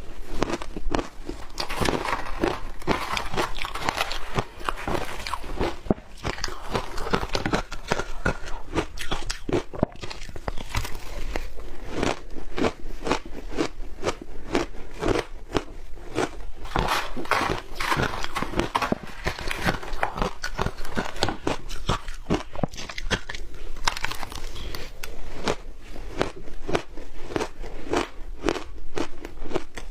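Close-miked biting and chewing of powdery shaved ice coated with matcha: a continuous run of dense, crackly crunches.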